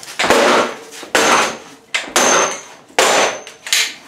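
An Acer LCD computer monitor lying face-down on a concrete floor being stomped on, five heavy hits about a second apart, each followed by a short rattle and a faint high ring from the breaking plastic casing and panel.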